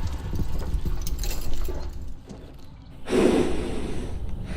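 A barrel-racing horse's hooves thudding on the arena ground, then a short, loud burst of breath about three seconds in.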